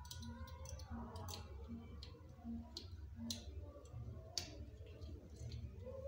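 Irregular small clicks and taps of hands fitting parts back onto a refrigerator compressor's terminals, over a low steady hum.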